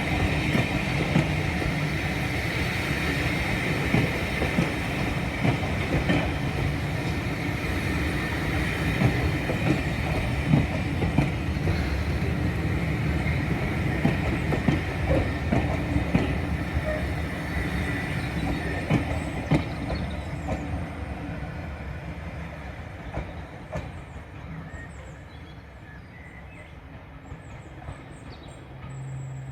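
Train rolling past on the rails, wheels clicking over the rail joints with a steady rumble, fading away over the last several seconds.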